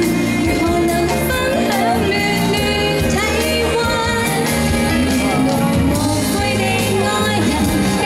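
A woman singing a pop song live over instrumental accompaniment with a steady beat.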